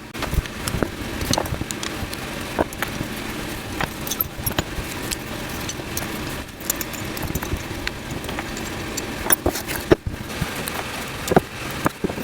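Small metal parts of a Chinese coil tattoo machine clicking and clinking irregularly as it is taken apart, over steady background noise.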